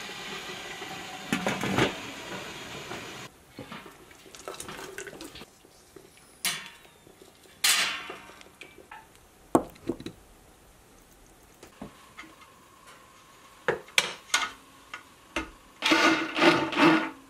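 Glass canning jars being set into a pot of hot water with a metal jar lifter: water sloshing and bubbling at first, then scattered clinks of glass and metal against the stainless canner. Near the end an immersion blender starts up in a pot of thick barbecue sauce.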